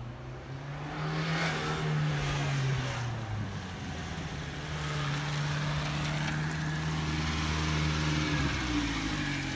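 1994 Subaru Sambar kei truck's 660 cc four-cylinder engine running as the truck drives slowly past. The engine note rises about a second in, eases off after about three seconds, holds steady, and shifts again near the end as the truck pulls away.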